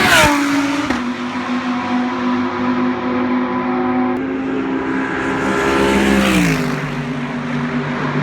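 GT3 race cars passing at speed: the engine note drops sharply in pitch as one car goes by at the start and another about six seconds in, with engine sound holding a steady pitch between the passes.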